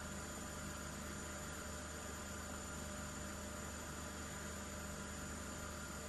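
Steady electrical hum and hiss with a few faint steady high tones, with nothing else happening: the background noise of an old video recording.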